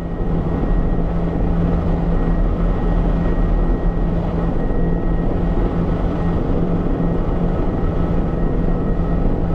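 Helicopter in flight heard from inside the cabin: steady turbine and rotor noise with a low hum and a thin, constant whine.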